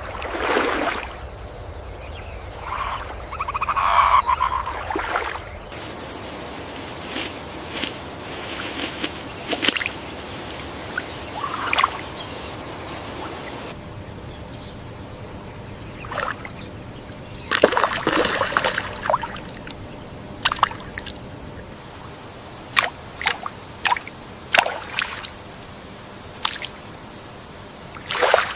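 Rainforest ambience of short bird calls, clicks and rustles over a steady hiss. The background changes abruptly a few times, as generated clips are cut together.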